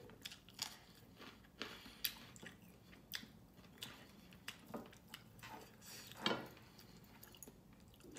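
Close-miked eating sounds: wet chewing and lip smacks with irregular soft clicks, as a mouthful of chicken adobo, rice and green chili is chewed and fingers work the rice on the plate.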